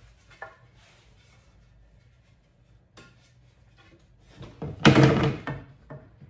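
Wooden boards knocking and clattering as they are handled, mostly faint at first, with a loud burst of clatter about five seconds in.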